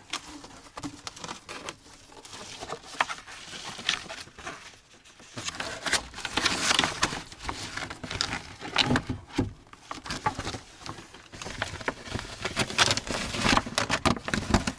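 A tablecloth being shaken out and spread over a table: irregular rustling and crinkling of the cloth with small knocks as it is handled, busiest in the second half.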